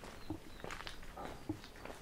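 Footsteps at a steady walking pace on a paved platform: a run of soft scuffs and taps, several a second, with a heavier heel strike now and then.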